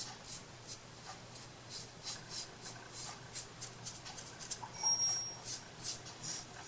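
Hand craft work on paper or wood: a run of short scratchy rubbing strokes, about two or three a second, with a brief high squeak about five seconds in, the loudest moment.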